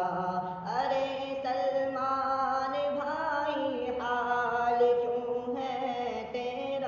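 Male voice singing a farewell tarana (Urdu nasheed) in long held notes, in a stretch with no words heard, the melody shifting to a new note about once a second.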